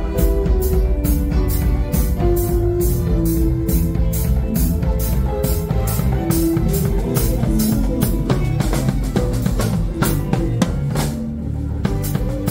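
Live band music: a drum kit keeping a steady beat with cymbal strokes over an electric bass line, with held melody notes above.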